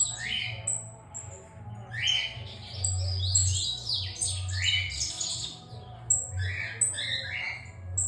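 Double-collared seedeater (coleiro) singing: a fast, jumbled song of quick downslurred notes mixed with short thin high notes, delivered in repeated bursts.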